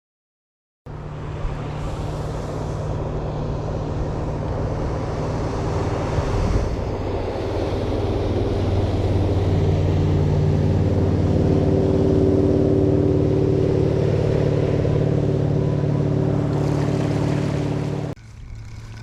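Boat engine running steadily, a little louder toward the middle. It starts suddenly about a second in and stops suddenly near the end.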